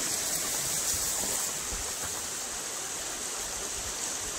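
Steady rushing of moving water.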